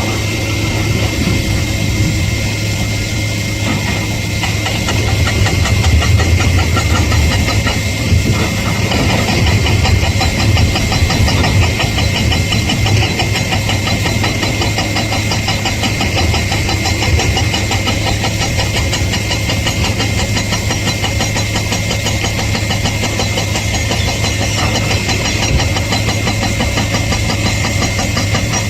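Heavy diesel engine of earthmoving machinery running steadily with a fast, even pulsing throbbing, swelling slightly a few seconds in.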